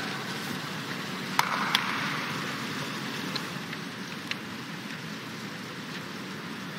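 Steady background noise of an indoor swimming arena, with a few short clicks, two close together about a second and a half in.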